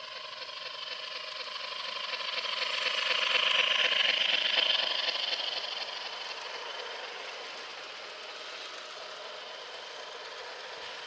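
O gauge model steam locomotive and freight train rolling past on the track: a dense clatter of wheels on rail over a steady whine. It swells to its loudest as the train passes close about four seconds in, then eases off as the freight cars roll by.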